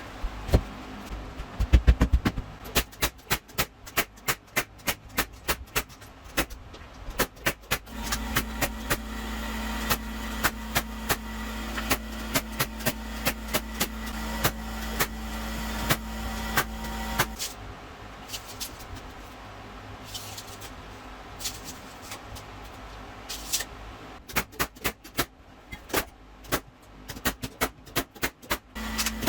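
An irregular series of sharp knocks from work on wooden stair parts, two or three a second. A steady motor hum runs between about 8 and 17 seconds in and starts again at the very end.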